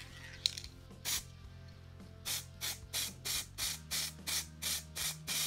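Aerosol can of Hobbycraft silver acrylic spray paint spraying onto a foam test piece: short hissing squirts about three a second, then one continuous spray near the end, laying on a heavy coat.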